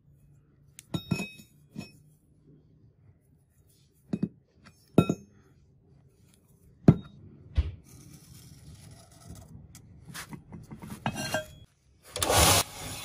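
A cut steel axe-head blank clinking and ringing as it is handled and set down on concrete, about six sharp knocks spread out. Near the end a belt sander with a coarse belt starts up with a loud rush of noise.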